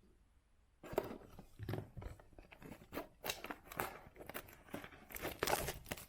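A cardboard trading-card box and its wrapping being torn and crinkled open by hand: irregular tearing and crackling rustles that start about a second in and cut off suddenly at the end.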